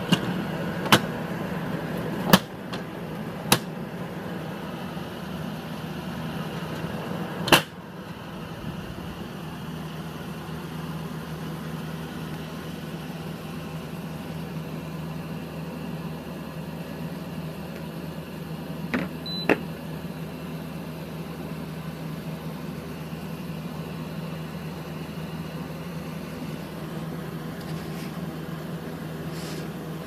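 Gree 10,000 BTU window air conditioner running with a steady hum. Short sharp clicks sound in the first few seconds, and the running sound steps down to a quieter level right after one about 7.5 s in. A short beep comes a little before 20 s.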